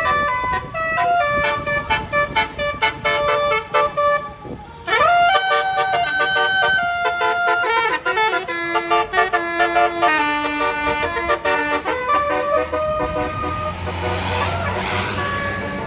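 Bus telolet horn, a multi-tone horn playing a fast tune of changing notes, with one note gliding up and held about five seconds in. A rushing noise joins near the end.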